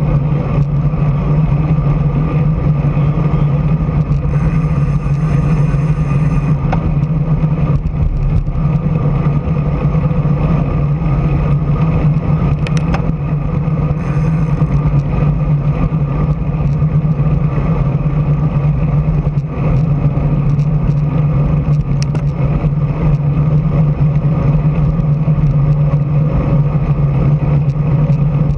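Steady wind rush and road noise on a camera riding on a moving road bicycle, with a constant low hum and a few faint clicks from bumps in the concrete road.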